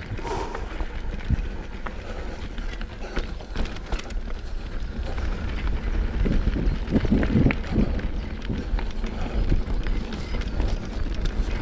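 Mountain bike rolling fast down a stony dirt trail: constant tyre rumble and crunch over gravel, with frequent sharp rattles and clicks from the bike, under heavy wind buffeting on the microphone.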